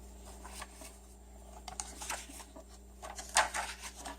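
Paper pages and tags of a handmade junk journal being handled and turned: scattered soft rustles and taps, the loudest about three and a half seconds in.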